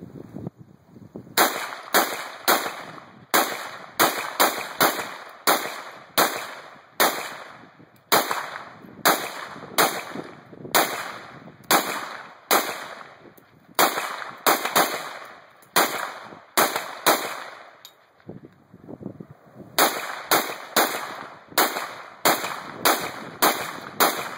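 AK-47-pattern rifle (7.62×39 mm) fired rapidly in semi-automatic, dozens of single shots at about two a second with a short echo after each. There is a pause of about two and a half seconds near the end before a final string of shots.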